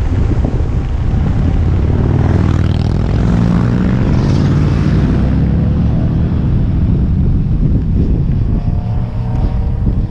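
Wind buffeting the microphone on a fast kick-scooter descent. Passing motorcycle engines sound over it, their pitch rising and falling through the middle and again near the end.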